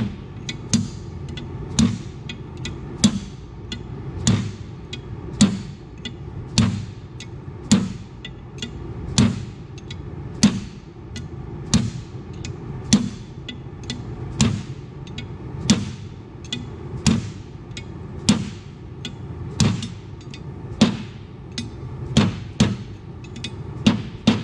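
Hammer blows on the steel parts of a John Deere 6400 front hub during reassembly: a heavy metal-on-metal strike about every second or so, with lighter taps between, each ringing briefly.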